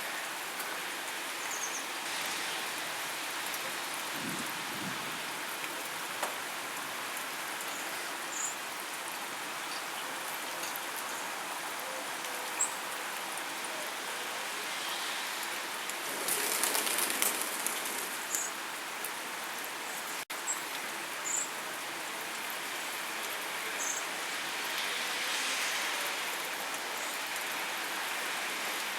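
Heavy rain falling steadily, with a brief heavier surge about halfway through.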